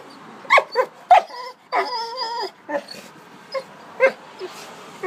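Dog whining at a stone it is pawing and nosing, a string of short high-pitched calls with a longer wavering whine about two seconds in.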